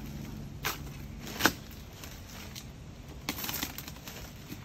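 A flat-screen TV panel being broken into: two sharp knocks or cracks, the second the loudest, then a quick run of crackling snaps about three seconds in.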